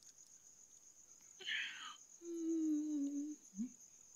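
Crickets chirping in a steady, continuous high trill. About a second and a half in comes a short breath, then a person hums a long, slightly falling "mmm" while eating.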